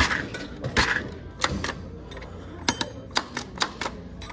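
A series of sharp mechanical clicks and clacks from a broken vending machine being worked, coming irregularly, a few a second.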